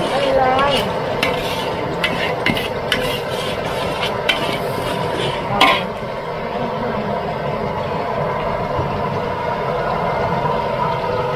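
Metal spatula stirring and scraping a large wok of stir-fry over steady sizzling, with repeated sharp clanks of the spatula against the wok, the loudest about five and a half seconds in. The clanking thins out in the second half and the sizzle carries on.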